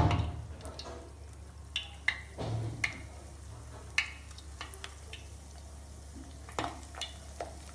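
Breadcrumb-coated egg balls being dropped one by one into hot oil, frying with a light sizzle and scattered pops and crackles.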